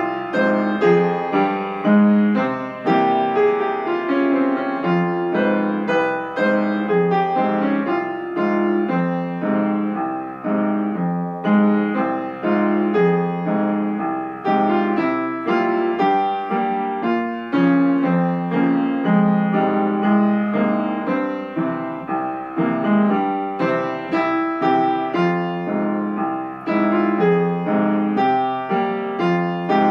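Solo piano played on a Yamaha piano: a steady stream of melody notes over chords, a slow Korean trot song arranged for piano.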